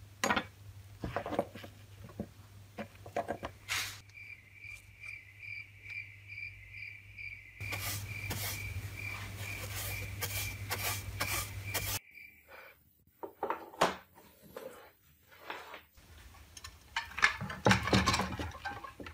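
Scraping and brushing rust and grit off the corroded brass burner of an old kerosene lamp on a wooden workbench, irregular rubbing with clicks over a low mains hum. A steady high chirp repeats about twice a second through the middle, and after a break there is clicking and clattering handling near the end.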